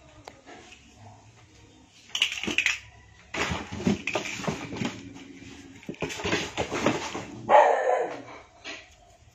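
A kitten scrambling and playing in cardboard boxes, with scraping and rustling of cardboard, broken by a few short, loud animal calls.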